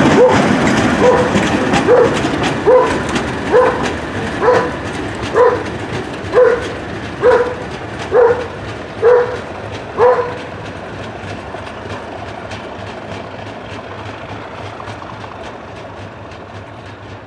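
Colas Rail Class 37 test train running on the rails, its sound fading. A short squeal repeats about once a second, spacing out slightly, and stops about ten seconds in.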